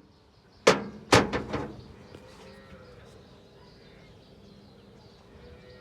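Two heavy hammer blows on metal about half a second apart, about a second in, each ringing briefly, followed by a few lighter knocks.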